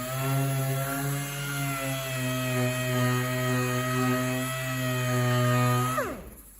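Power tool running steadily with a high whine, then switched off about six seconds in, its pitch falling quickly as it spins down.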